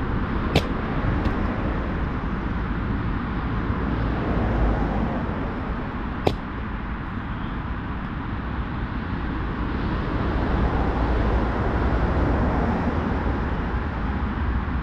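Steady rush of road traffic passing on a nearby main road, swelling as vehicles go by, with two sharp clicks about half a second and six seconds in.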